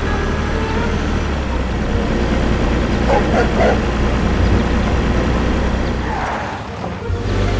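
Tractor engine sound effect running steadily, with a few short higher-pitched sounds about three seconds in and a brief dip in the engine sound near the end.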